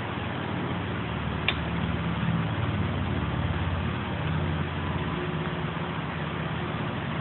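A steady low mechanical hum, like an engine running, with one sharp click about one and a half seconds in from the torque wrench tightening the rocker-arm shaft bolts on a Honda cylinder head.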